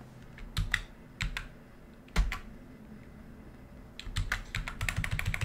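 Typing on a computer keyboard: a few separate keystrokes in the first couple of seconds, a louder one a little after two seconds in, then a quick run of keystrokes from about four seconds in.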